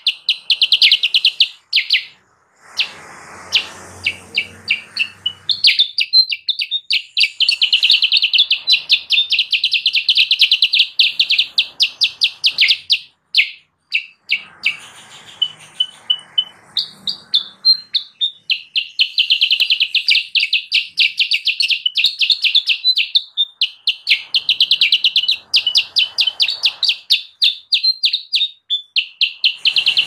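Kutilang sutra (black-capped bulbul) singing, loud and rapid: long chattering runs of fast-repeated high notes lasting several seconds each, broken by a few brief pauses.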